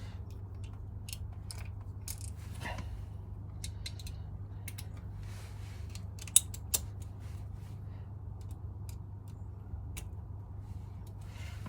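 Scattered small metallic clicks and taps of hand tools on the motorcycle's front-wheel fasteners, two sharper clicks about six and a half seconds in, over a steady low hum.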